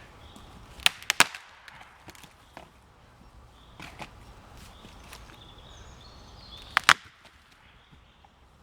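Dead, partly rotten pine wood snapping as lengths are levered in the fork of two trees: three sharp cracks about a second in, and two more close together near the end.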